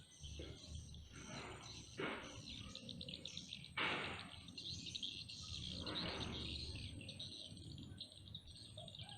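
Flooded-forest ambience: birds chirping and a steady high-pitched insect drone. Three short rushing noises come about two seconds apart.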